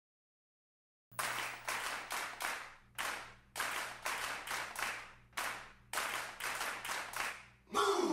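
A run of about fifteen hand claps, each with a short echoing tail, starting about a second in and spaced unevenly at two to three a second. Music begins near the end.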